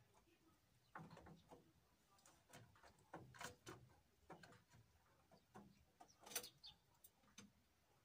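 Great tit pecking at bread crumbs in a small feeder tray: irregular soft taps and clicks of beak and claws on the bread and tray, the loudest about six and a half seconds in.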